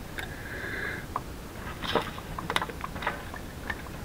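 Light, irregular metallic clicks and taps from a quarter-inch ratchet and short 10mm socket being worked onto a hard-to-reach bolt on a Honda transmission solenoid. There is a short run of quick clicks about two and a half seconds in.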